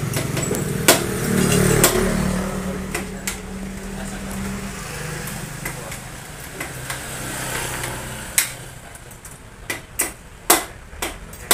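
A motorcycle engine running, loudest in the first two seconds and fading away by about five seconds in. Several sharp knocks follow near the end.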